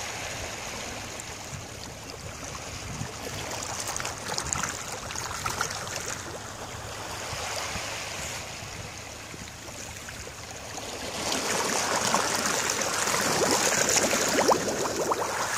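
Small waves lapping and splashing at the water's edge, a steady watery wash that grows louder about two-thirds of the way through.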